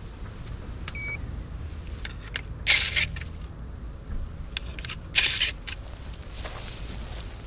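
A short electronic beep about a second in, then two loud, sharp, hissy bursts about two and a half seconds apart from a handheld power tool being worked at a vine, with smaller bursts between, over a steady low rumble.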